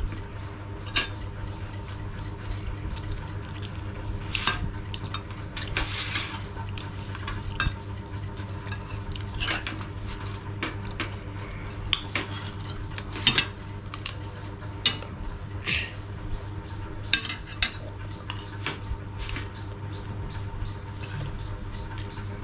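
Metal spoons and forks clinking and scraping against ceramic plates of rice as two children eat, in scattered short clicks, over a steady low hum.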